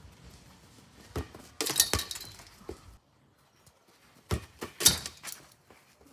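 A football kicked twice, each kick a dull thud followed about half a second later by a sharp rattling clatter as the ball hits the goal's net and frame.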